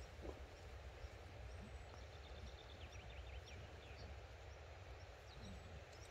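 Quiet outdoor background: a steady low rumble, like wind on the microphone, with a few faint high chirps about halfway through.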